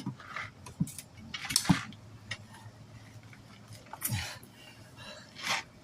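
Tire spoons scraping and knocking against a steel wheel rim as a tire bead is levered on by hand, in a few short separate bursts with one sharper knock about a second and a half in.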